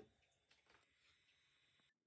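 Near silence: faint room tone with a couple of soft, faint taps in the first second.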